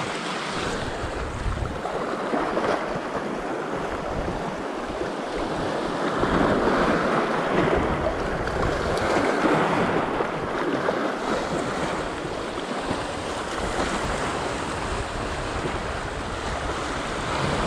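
Small sea waves surging and washing over shoreline rocks, rising and falling in swells, with wind buffeting the microphone.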